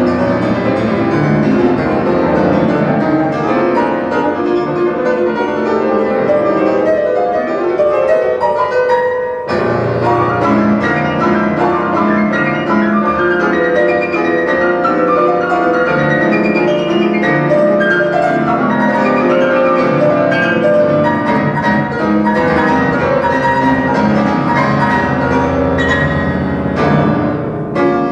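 Classical music with piano and bowed strings, played from reel-to-reel tape through a high-end stereo system with MBL loudspeakers.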